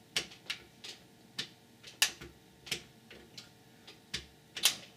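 A run of light, irregular clicks and taps, about two or three a second, from hands handling test gear on a bench.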